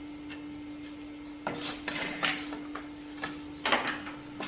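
A utensil stirring coriander seeds and peppercorns as they dry-roast in a pan, scraping against it, starting about a second and a half in. A steady low hum runs underneath.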